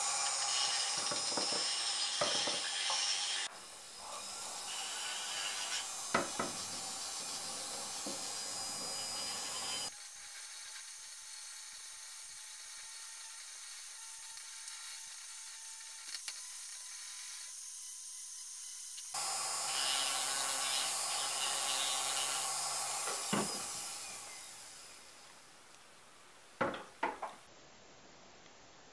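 Foredom flexible-shaft rotary tool running, its handpiece grinding and sanding a small walnut letter opener, in several stretches with abrupt cuts between them. The tool winds down near the end, followed by a few sharp clicks.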